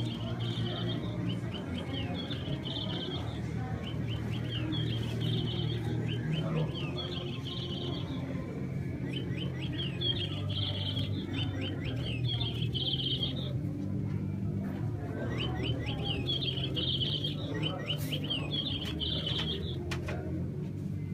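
Bird chirping in short repeated phrases of quick falling chirps ending in a trill, coming in three groups with short gaps between, over a steady low hum.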